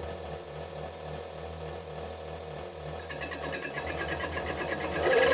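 Aurora A-801 leather skiving machine running on its servo motor, the rotating knife giving a steady hum. About three seconds in, the sharpening stone is wound onto the knife and a grinding hiss joins, growing louder near the end as the knife is sharpened.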